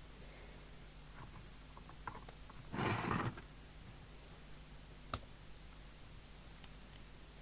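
Small clicks and a short scrape of radio parts and screws being handled during reassembly, the loudest a brief scrape about three seconds in and a sharp click about five seconds in, over a faint steady low hum.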